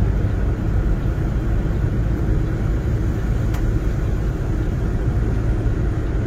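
Steady low rumble of a moving vehicle's road and engine noise.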